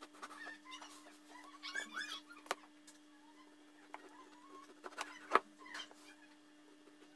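Kitchen knife cutting raw turkey breast on a plastic cutting board, with a few sharp knocks of the blade on the board, the loudest about five seconds in. Animal calls sound in the background, over a steady low hum.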